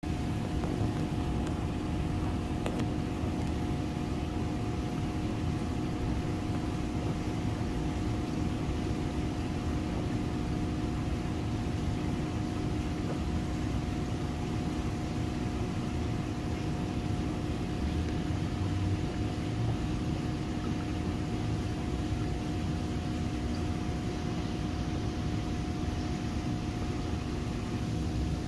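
Steady electric hum of aquarium equipment, such as an air pump or filter motor, with a constant low rumble and a couple of unchanging tones.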